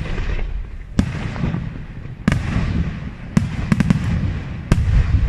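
Aerial firework shells bursting in a string of sharp bangs, about one a second, with a quick cluster of three or four bangs a little past the middle. A low rumbling echo rolls on between the reports.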